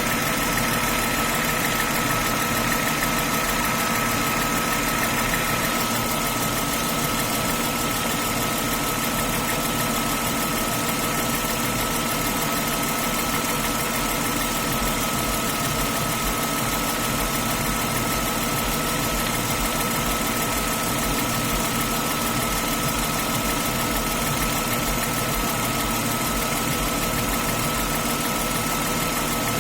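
BMW M50/M52 straight-six engine idling steadily with a knocking, which the owner traces to the clutch release (throw-out) bearing running unevenly and striking the clutch pressure plate.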